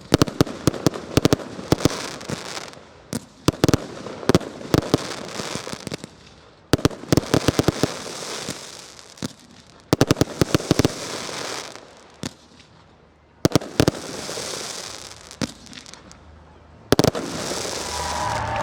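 Firework display: volleys of sharp bangs come in quick clusters every few seconds, with crackling and hissing from the bursting shells between the volleys.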